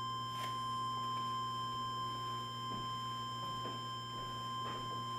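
Steady, faint, high electronic whine at one unchanging pitch over a low electrical hum, with a few faint clicks.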